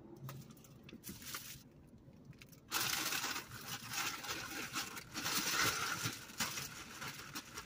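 Rustling and crinkling handling noise that starts suddenly about three seconds in, after a few faint clicks.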